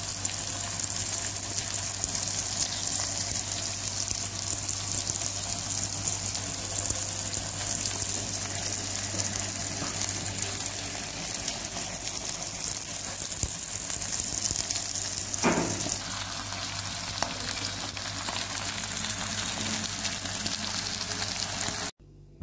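Chicken breasts sizzling steadily in oil on a ridged grill pan, over a low steady hum. There is a single knock about fifteen seconds in, and the sizzling cuts off suddenly near the end.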